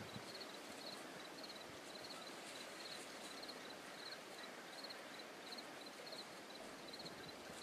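Quiet outdoor field ambience: a faint, even hiss with a faint, high chirp repeating two or three times a second.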